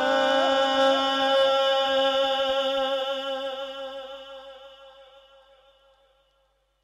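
Male naat reciter singing one long held note into a microphone, with small repeated flicks in the note about twice a second. The note fades away to silence near the end.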